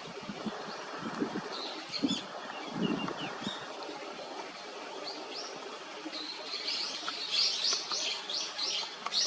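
A bird calling: short, high, thin notes repeated in a quick series of about three a second, starting about six seconds in. A few low thumps come in the first few seconds.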